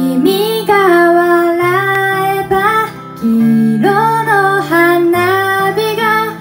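A woman singing in phrases while strumming an amplified acoustic guitar, the song starting right at the opening.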